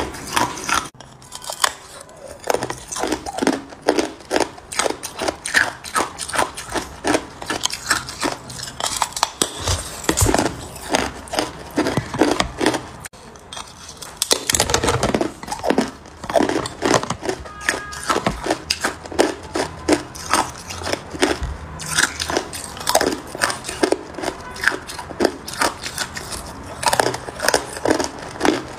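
A large block of hard, clear ice being bitten and chewed: a rapid, irregular run of sharp cracks and crunches, several a second, with a short lull about a second in and another near the middle.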